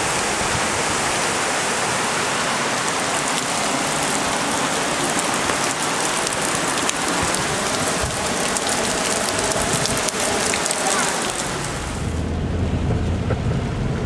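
Steady rushing hiss of storm floodwater running through a yard after a rain and hail storm. Near the end the hiss fades and a low rumble comes in.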